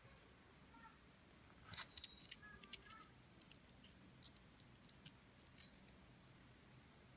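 Near silence, broken by a cluster of sharp clicks about two seconds in, then a few fainter scattered ticks.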